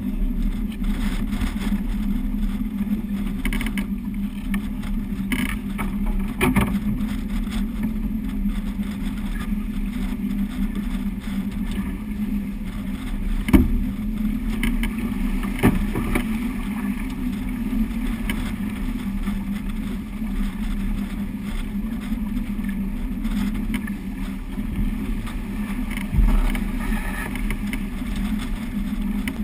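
Wind buffeting the microphone and water rushing along the hull of a heeled sailing yacht driving hard through chop in a stiff breeze, a steady loud rumble and hiss. Two sharp knocks come about two seconds apart a little past halfway.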